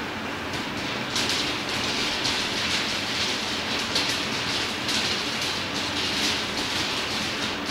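Cinemeccanica Victoria 5 35mm film projector running: a steady mechanical rattle and whir with irregular clicks over a low hum.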